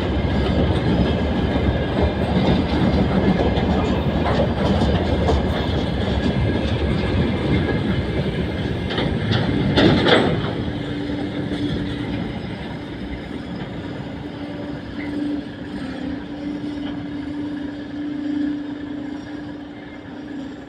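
Freight train wagons rolling past, wheels clattering over the rail joints, with a loud clank about halfway through; after it the clatter fades slowly under a steady tone.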